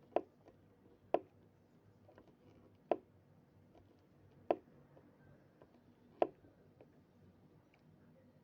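Eating sounds: five sharp clicks or taps, spaced one to two seconds apart.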